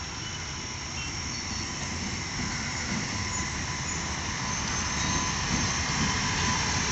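WAP-7 electric locomotive pulling out at departure speed and approaching, its running noise a steady rush that grows gradually louder, with a faint steady whine.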